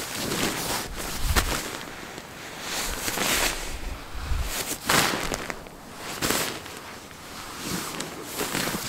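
Nylon shell of a down sleeping bag rustling and swishing in repeated strokes as it is turned inside out and rolled up tightly by hand, with a couple of dull thumps of handling.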